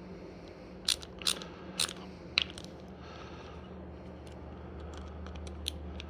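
Sharp clicks and taps of hand tools and small metal parts being handled, four louder ones in the first two and a half seconds and lighter ticks later, over a low steady hum.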